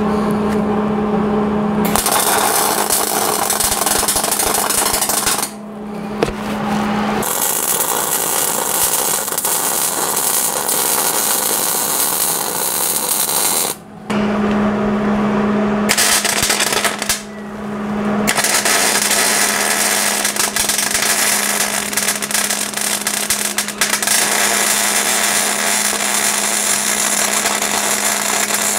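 Arc welding on thick steel brackets: a loud, steady crackling buzz from the arc, in several runs broken by short pauses about 6, 14 and 17 seconds in. A steady low hum carries on through the pauses.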